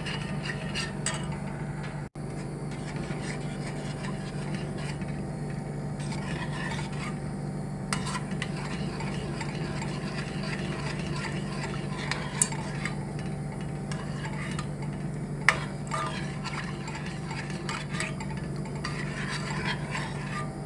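Metal spoon stirring a thick yogurt-and-flour soup round a stainless steel pot, scraping steadily with a few sharp clinks against the side, over a steady low hum. The soup is being stirred continuously until it boils to keep it from going lumpy.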